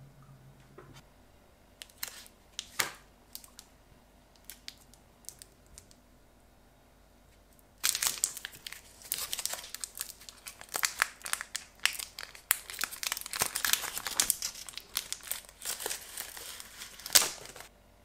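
A few light handling clicks, then from about eight seconds in a long run of crinkling and tearing as the plastic wrapper of a Laffy Taffy rope is peeled open by hand. It stops just before the end.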